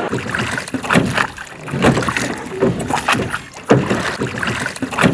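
Hand-rowed wooden boat on a river: oars knocking and splashing in a steady rhythm, about one stroke a second.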